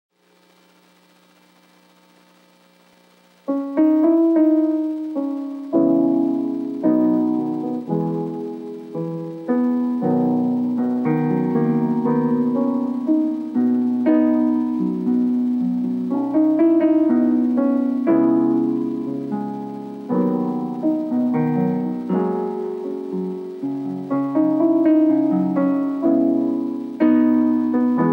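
Solo piano music played on a digital piano: chords and melody notes, each struck and fading away. The playing starts about three and a half seconds in, after a faint low hum.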